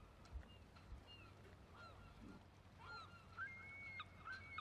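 Near silence with faint bird calls, sparse at first and coming more often near the end.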